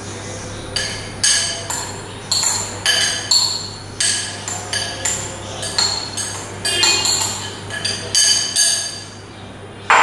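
Metal spoon clinking and scraping against a ceramic bowl as chopped cabbage is knocked out into a pan: a run of sharp clinks, about two a second, each with a short ring.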